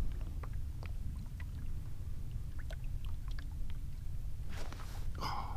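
Water sloshing around a fishing kayak's hull under a steady low rumble, with scattered small ticks. Near the end there is a brief louder rush and then a short higher sound.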